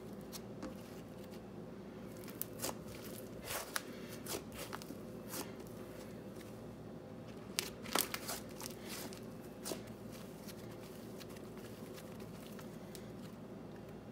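Icee cream texture slime being handled, pressed and pulled on a tile counter, giving scattered crackling clicks and small pops. The clicks cluster in the middle and are loudest about eight seconds in, over a steady low hum.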